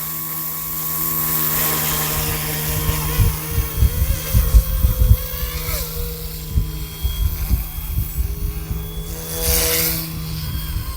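Small brushless RC helicopter (Eachine E187S) running as it lifts off, its motor and rotor making a steady whine of several tones, one of which slowly drops in pitch midway. Strong wind buffets the microphone in irregular rumbling gusts.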